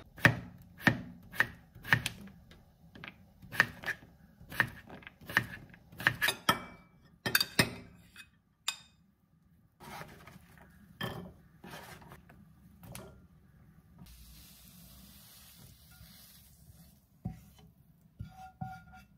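Knife chopping on a wooden cutting board: sharp knocks at roughly two a second for the first eight seconds, then fewer and softer knocks and clatters.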